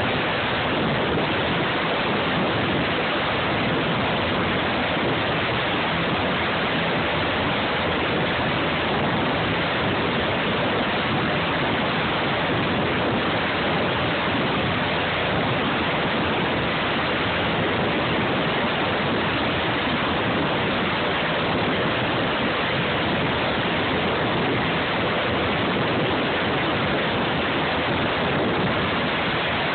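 Sikorsky S-92 helicopter running on the ground with its rotors turning: the twin turboshaft engines and rotors make a steady, unchanging rush of noise.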